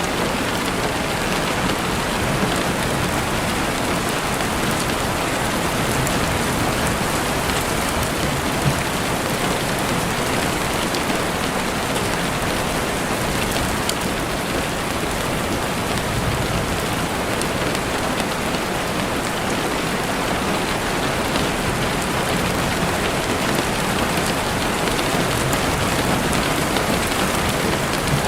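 Steady rain falling, with scattered faint crackles from a campfire, one a little louder about nine seconds in.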